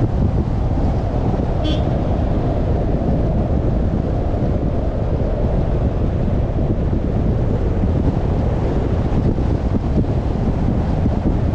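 Steady, loud wind buffeting the microphone over the low rumble of a moving car, with a brief high chirp about two seconds in.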